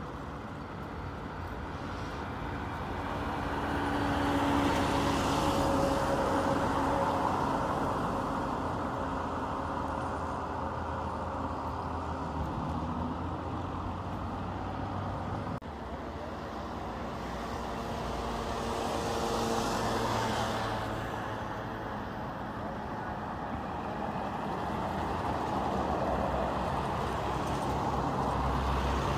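Street traffic: cars and trucks driving past with a steady engine and tyre noise, swelling as one vehicle passes about five seconds in and another around twenty seconds in.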